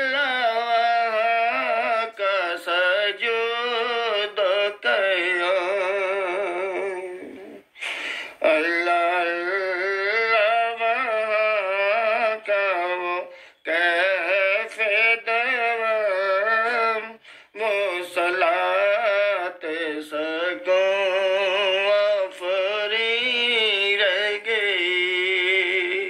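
Singing of an Urdu naat melody: layered voices in long, wavering sung phrases broken by short pauses about 8, 13.5 and 17.5 seconds in, with no audible instruments or beat.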